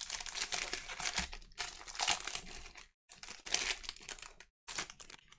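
Foil wrapper of a trading-card pack crinkling and tearing as it is opened, with the rustle of the cards being handled. It comes in several bursts, broken by short pauses in the second half.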